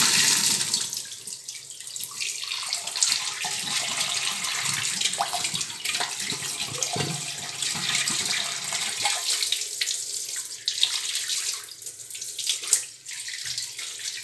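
Water from a kitchen tap running and splashing over a silver lamp held under the stream and rubbed by hand, rinsing off a coat of toothpaste. The running water is strongest in the first second, then steadier.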